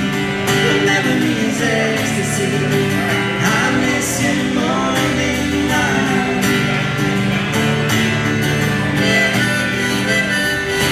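A live band playing a song, with acoustic guitar and singing.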